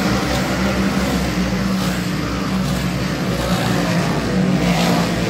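Race car engines running at speed, a steady drone without let-up.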